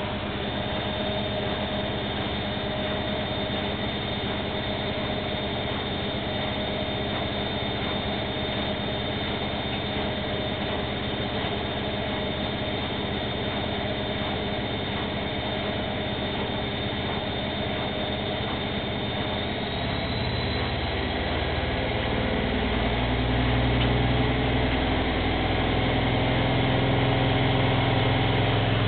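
Bauknecht front-loading washing machine in its spin cycle: the drum and motor run steadily with a high whine and a low hum. About two-thirds of the way through, the drum speeds up and the sound grows louder, the hum rising in pitch and the whine climbing slightly.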